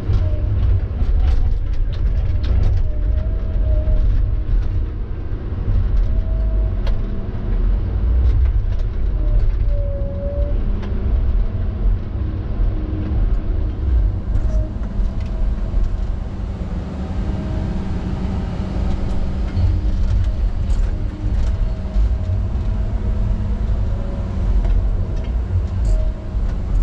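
Tigercat log loader's diesel engine running under load, heard from inside the cab, as the hydraulic boom and grapple load logs onto a truck. A faint wavering whine comes and goes, with scattered light knocks from the logs and grapple.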